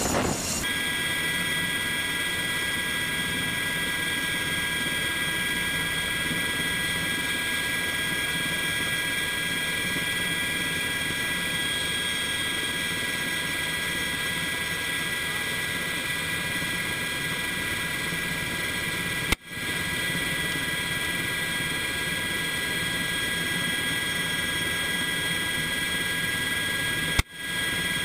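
Steady Black Hawk helicopter cabin noise through the open door: turbine and rotor din with a high, steady whine. It is broken twice, about eight seconds apart, by a sharp crack that briefly cuts the sound out, the sniper rifle firing from the door.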